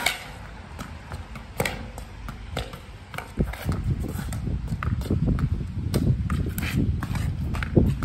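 Tennis ball hit with a racket against a stone house wall: a series of sharp knocks of racket strikes and ball bouncing off the stone, irregularly spaced, the loudest right at the start. A low rumble builds underneath from about halfway.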